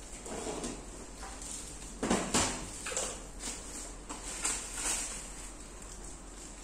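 Floor panels of an inflatable boat being handled and fitted: a series of knocks and scrapes, the loudest about two seconds in.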